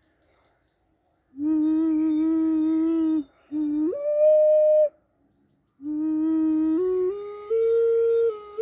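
Round ceramic ocarina playing slow, held notes of a D-sharp minor pentatonic scale tuned to A = 432 Hz. A long low note is followed by a short one that slides up an octave and holds, then a phrase stepping upward note by note.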